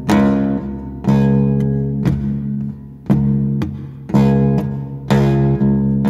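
Badly out-of-tune guitar, said to be missing three strings, strummed about once a second. Each chord rings and fades before the next, with a lighter stroke in between now and then.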